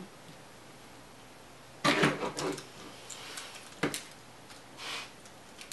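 Plastic Transformers figure being handled and twisted through its transformation: a quick cluster of clicks and rattles about two seconds in, one sharp click about two seconds later, and a softer rustle near the end.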